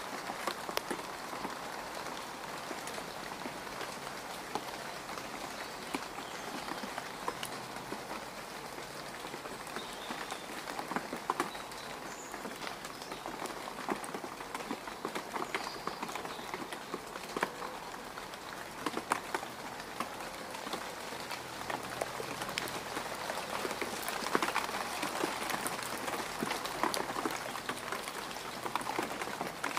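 Rain falling on mud: a steady hiss of rain with many separate drops ticking through it, growing a little heavier in the last few seconds.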